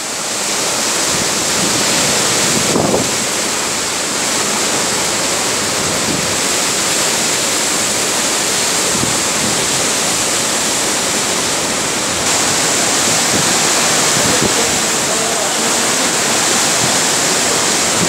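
Cyclone-force wind rushing through palm and other trees, a loud, steady wall of noise that gusts a little louder about twelve seconds in.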